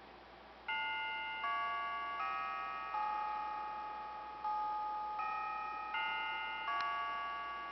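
Kyocera MTV-edition slider cell phone playing a built-in ringtone through its small speaker: a slow, chime-like melody of bell-like chords that starts about a second in, a new note roughly every three-quarters of a second, each ringing on and fading into the next.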